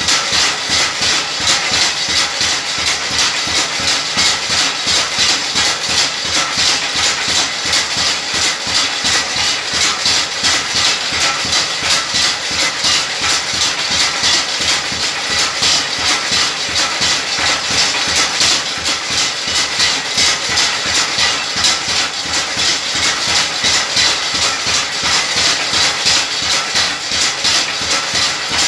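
Motor-driven chilli-grinding (chutney) machine running steadily, churning red chilli into paste in its bowl with a fast, even, rhythmic grinding noise.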